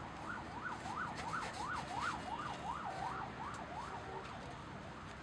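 An emergency-vehicle siren in a fast up-and-down yelp, fading away about four seconds in, with faint clicks over it.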